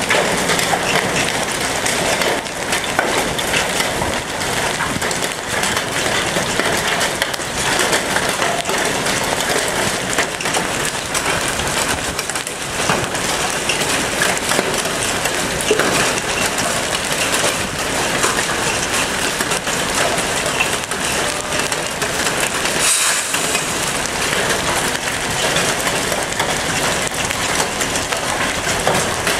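Large hail falling with heavy rain: a dense, steady clatter of hailstones striking, with one sharper crack about three-quarters of the way through.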